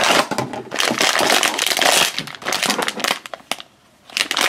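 A cardboard blind box is opened by hand and the foil blind bag inside is pulled out and crinkled: dense crackly rustling that pauses briefly near the end, then starts again.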